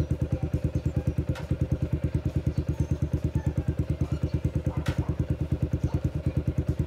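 Yamaha Sniper 135's single-cylinder four-stroke engine idling with steady, even exhaust pulses. A light click sounds about a second and a half in, and another just before five seconds.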